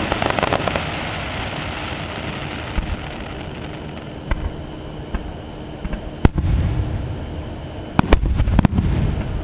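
Aerial fireworks shells bursting: crackling at the start, a few faint pops, a sharp bang about six seconds in, then a cluster of bangs near the end with low rumbling after them.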